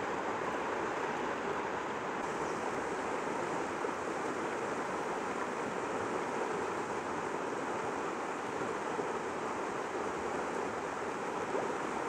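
Mountain stream running over rocks and small rapids: a steady rush of water.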